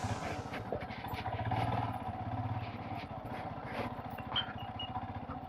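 Royal Enfield Himalayan's single-cylinder engine running steadily, with scattered light clicks and rattles over it.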